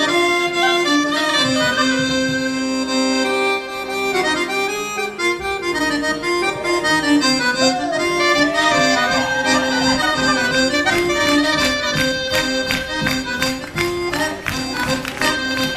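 Accordion playing a traditional dance tune, with held notes under a moving melody. From about ten seconds in, a quick, fairly even run of sharp clicks or taps joins the music.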